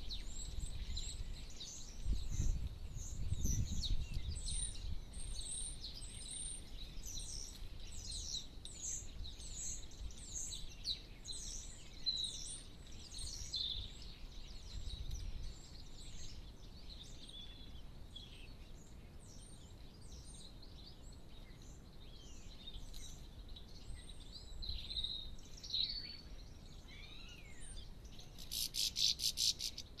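Small songbirds twittering: many short, high chirps and whistled notes throughout, with a fast rattling trill near the end. A brief low rumble comes a couple of seconds in.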